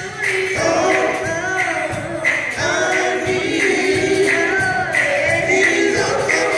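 Live gospel music: a small group of singers singing in harmony into microphones, backed by a live band with a steady drum beat.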